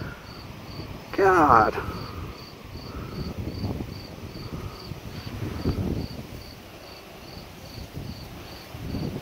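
A cricket chirping steadily, about three short high chirps a second, with a few soft rustles.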